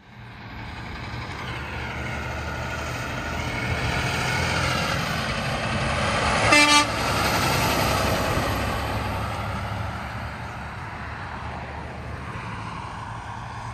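Semi truck with a dry van trailer passing close by, its diesel engine and tyre noise building and then fading as it goes away. It gives one short horn toot about six and a half seconds in.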